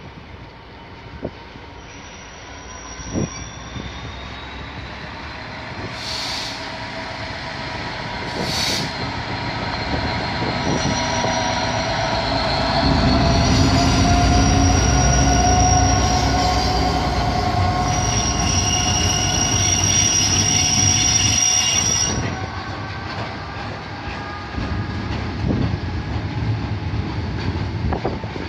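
Diesel freight locomotive approaching and passing, its engine rumble growing louder to a peak about halfway through. A long train of loaded steel-coil wagons then rolls by, with high, steady wheel squeal for several seconds. After the squeal stops, the wagons keep rolling with clicks over the rail joints.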